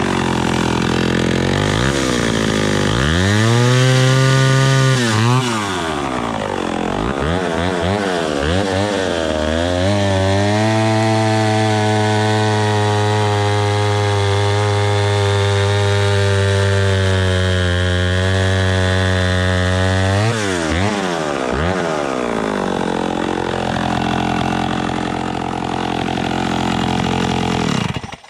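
Vintage PM Canadien 187 two-stroke chainsaw idling with throttle blips, then revved up hard about three seconds in. From about ten to twenty seconds it is held at full throttle, cutting through a log, before dropping back to idle and cutting off suddenly near the end.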